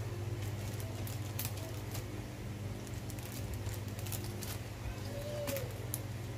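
Paper sticker sheet handled, with scattered light clicks and rustles over a steady low hum.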